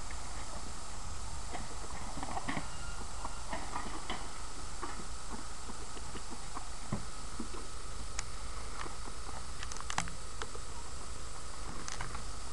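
Light, irregular crunching and clicking of footsteps on gravel, the sharpest clicks about 8, 10 and 12 seconds in, over a steady low rumble.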